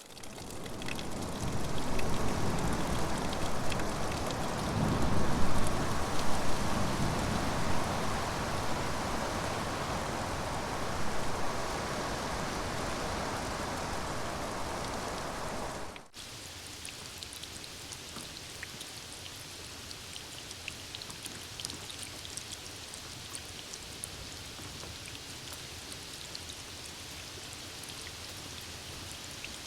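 Steady rainfall. For about the first half it is heavy and full, with a deep low part to it; then it cuts off suddenly to a lighter, quieter rain in which single drops tick and patter.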